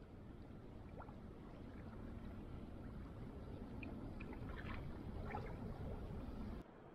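Shallow lake water lapping gently at the edge, with small trickles and splashes over a low wash, cutting off suddenly near the end.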